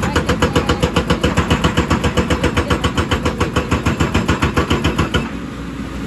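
Hydraulic rock breaker on a JCB excavator hammering rock at about eight blows a second over the diesel engine. The hammering stops suddenly about five seconds in, leaving the engine running.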